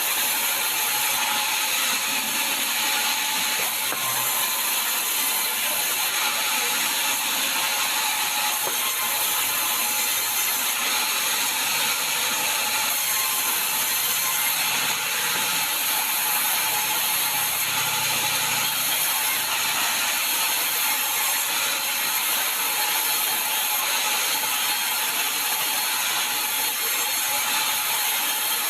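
Sawmill saw cutting through a sengon log, a steady dense mechanical noise that runs on without a break.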